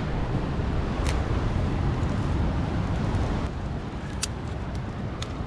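Steady low rumble of wind on the microphone, with a few sharp snaps of dry twigs and brush.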